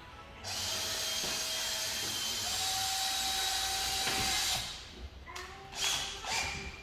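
A power tool runs steadily for about four seconds, stops, then gives two short bursts near the end.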